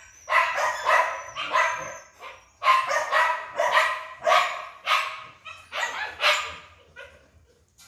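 Dog barking repeatedly, about a dozen sharp barks in quick runs that grow fainter near the end.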